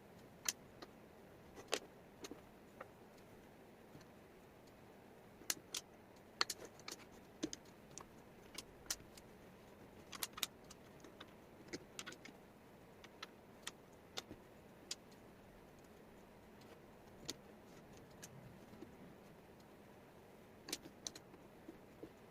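Wooden jigsaw puzzle pieces clicking and tapping on a tabletop as they are handled and set down: sharp, irregular clicks, sometimes several in quick succession, over a faint steady hiss.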